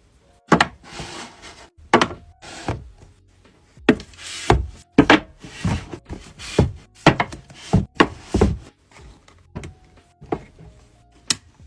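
Paperback manga volumes being slid and set into place on a shelf: a string of sharp knocks, each followed by a short sliding rub.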